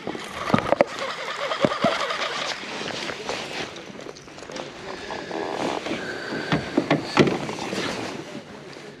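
Handling noise on a fishing kayak: a baitcasting reel being wound in and a small fish being lifted aboard, heard as irregular clicks, knocks and rustling, with the sharpest knocks near the start and again near the end.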